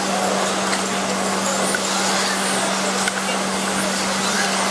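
Electric RC touring cars running laps, their motors whining in faint high glides that rise and fall as they pass, over a steady noisy wash and a constant low hum.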